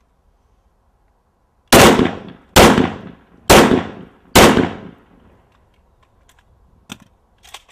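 Four single shots from an AK-47 rifle firing 7.62×39 mm Czechoslovakian mild-steel-core rounds, about one a second, each followed by a short echoing tail.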